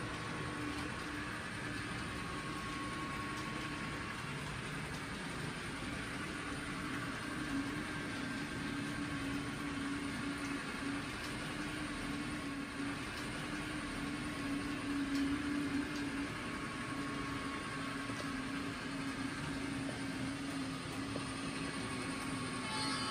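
H0-scale model freight train with model EMD diesel locomotives running on the layout: a steady diesel-engine hum with one constant low tone, growing a little louder in the second half as the train draws nearer.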